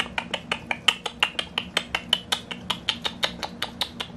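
Hedgehog crunching dry kibble from its bowl: a fast, even run of sharp crunches, about six a second.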